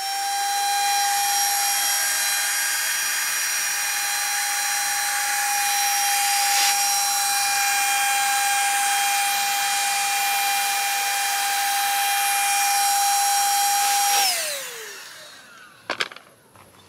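Small electric air pump running with a steady high whine, inflating the air mattresses for the tent. Near the end it is switched off and winds down with a falling pitch, followed by a sharp click.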